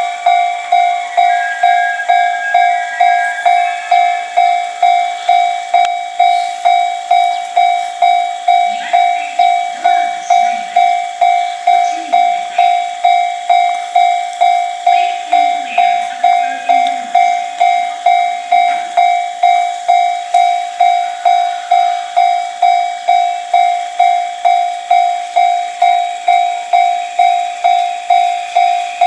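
Japanese railway level-crossing alarm ringing: an electronic bell tone repeating in quick, even strikes without a break.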